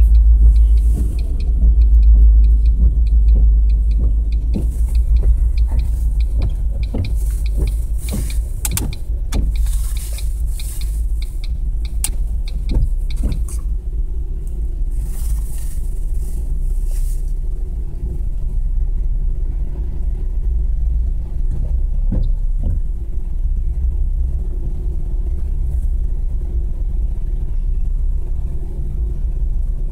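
Norfolk Southern coal train passing, heard from inside a car: a heavy low rumble, loudest in the first few seconds as the diesel locomotives go by, then the steady roll of the coal hopper cars with scattered knocks and clicks, most of them in the first half.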